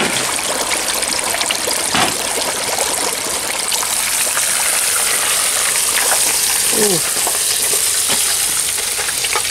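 Hot oil in a turkey fryer pot bubbling hard around a whole turkey, a steady, loud sizzling hiss as the bird is lifted out on its hook.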